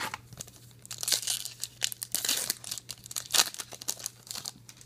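A trading-card pack's wrapper crinkling in bursts as it is torn open and handled.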